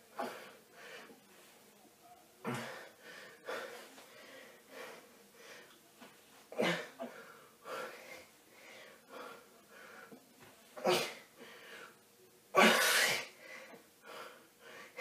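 A man breathing hard through an abdominal crunch exercise, with sharp, irregular exhalations; the loudest comes about two seconds before the end. A faint steady hum lies beneath.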